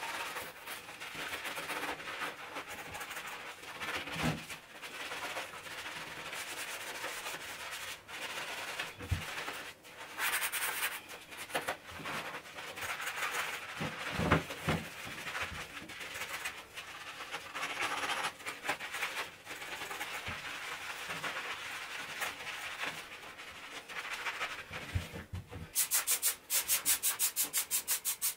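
Scouring sponge scrubbing a limescale-crusted chrome shower mixer tap and its pipes in a continuous rubbing scrub. Near the end comes a quick, even run of short hisses from a trigger spray bottle being pumped.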